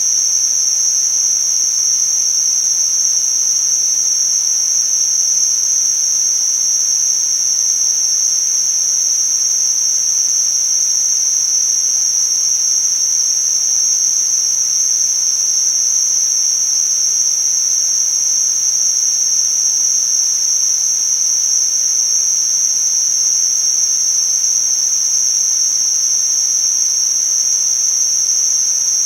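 Tinnitus-masking noise: a steady, high-pitched hiss confined to a narrow band of pitch, unchanging and without any rhythm, over a much fainter wider hiss.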